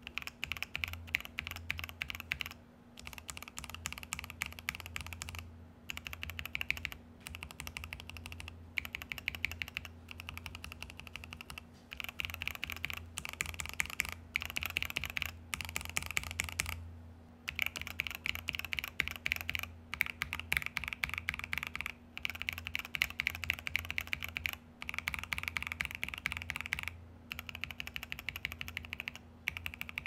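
Fast typing on a mechanical keyboard with lubed linear switches in a polycarbonate plate, Tecware Pearl Teal switches heard in turn against Gat Milky Yellow and then Akko Matcha Green switches. The keystrokes come in runs of a few seconds broken by short pauses.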